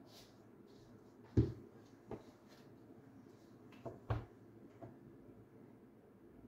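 Wild mushrooms being trimmed with a knife by hand: a few irregular soft knocks and taps, the loudest about a second and a half in and two close together about four seconds in.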